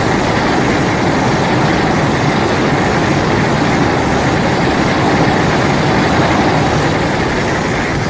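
A loud, steady rumbling sound effect with no clear pitch.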